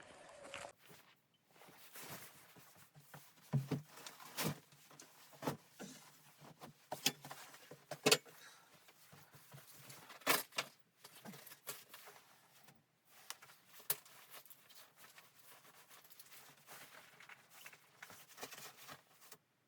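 Irregular light knocks and clicks over faint rustling, a few of them sharper, about 3.5, 4.5, 8 and 10.5 seconds in.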